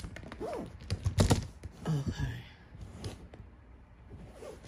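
Hard cast epoxy resin parts clicking and knocking against each other as they are handled and fitted together, with a few sharp knocks about a second in and again about three seconds in.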